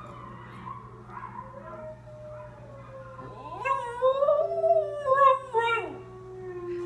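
Wolves howling from a television, long calls slowly gliding in pitch, joined a few seconds in by a Lhasa Apso howling along, which is the loudest part, rising and falling before fading near the end.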